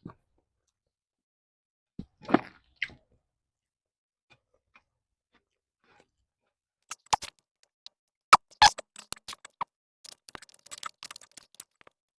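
Close-miked eating of pempek fish cakes: wet mouth smacks and chewing clicks, sparse at first and coming thick and fast in the last few seconds.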